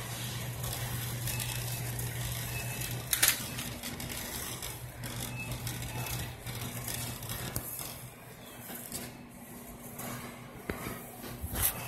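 Shopping cart rolling along a supermarket aisle, its wire basket and wheels rattling over a steady low hum. Two sharp clicks stand out, one about three seconds in and one near the end.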